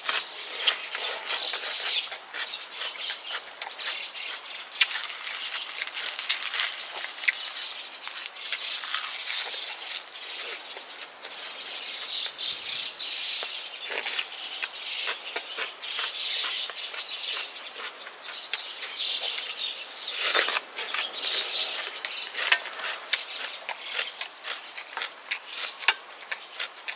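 Close-up eating sounds: crunchy chewing of food with wet mouth smacks and many small clicks.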